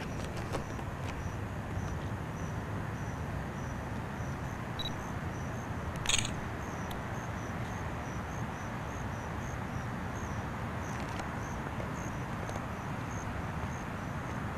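A cricket chirping steadily, about two short high chirps a second, over a steady hiss. A single sharp click comes about six seconds in.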